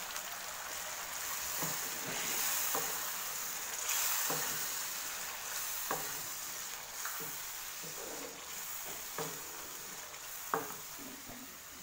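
Kofta curry sizzling in a karahi as boiled chickpeas just added are stirred in with a wooden spatula, with a steady hiss and a light knock of the spatula against the pan about every second.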